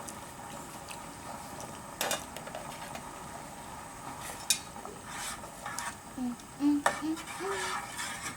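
Scattered clinks and knocks of dishes and utensils being handled, three sharper knocks standing out, with a few short pitched sounds near the end.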